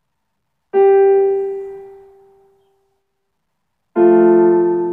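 Keyboard in a piano voice: a single note struck and left to die away, then a chord struck about four seconds in and left ringing.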